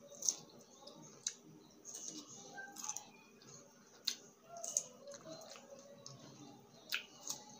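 Close-miked chewing of raw cucumber: crisp crunches and wet mouth clicks, a sharp one every second or so.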